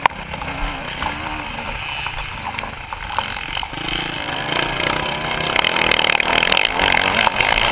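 Motocross bike engine revving up and down while ridden hard, heard from a camera mounted on the bike, with wind buffeting the microphone and rattles and knocks from the chassis over the rough ground. The engine gets louder and brighter about five and a half seconds in.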